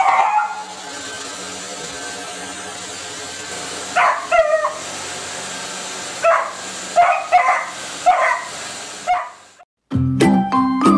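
Beagle puppy barking and yipping in a string of short barks, bunched from about four seconds in, over the steady hum of a running bagless upright vacuum cleaner. Near the end the sound cuts out briefly and music starts.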